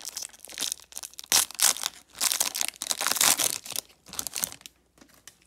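Foil baseball card pack being torn open and its wrapper crinkled as the cards are pulled out: a run of irregular crackling tears that stops about four and a half seconds in.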